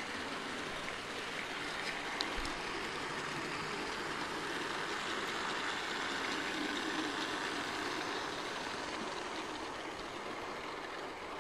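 Bachmann 00-scale model locomotive and Mk1 coaches running on sectional track: a steady whirring rush of the motor and wheels on the rails. It swells a little in the middle, and a few faint clicks come through.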